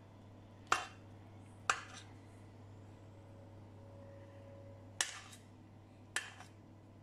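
Kitchen knife chopping through soft goat's cheese and striking a glass cutting board: four sharp clicks, two in the first two seconds and two more after a pause of about three seconds.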